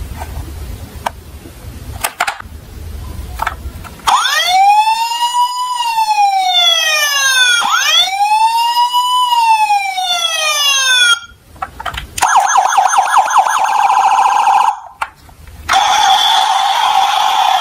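A low rumbling noise with a few clicks, then a siren: two slow wails, each rising and falling over about three and a half seconds, followed by a faster pulsing siren tone that breaks off briefly twice.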